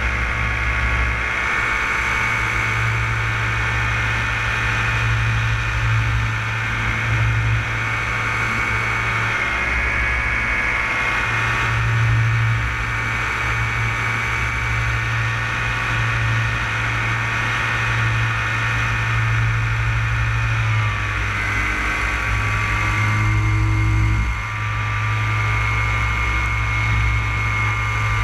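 Paramotor engine and propeller running steadily in flight, a continuous engine note with a high whine over it. The pitch shifts slightly about twenty seconds in.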